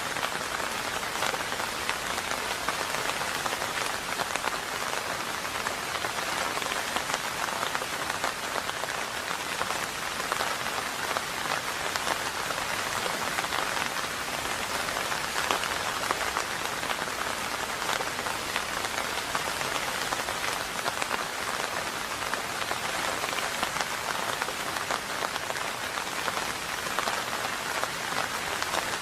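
Steady rain falling on a hard surface, an even wash of noise dotted with the ticks of single drops, with no change in strength and no thunder.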